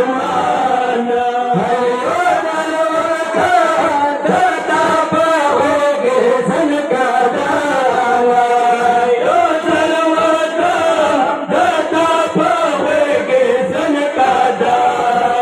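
Men's voices chanting a Pashto noha, a Muharram mourning lament, in a steady rising and falling melody.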